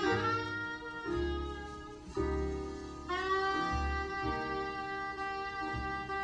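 Instrumental background music: long held melody notes changing about once a second over a low bass line.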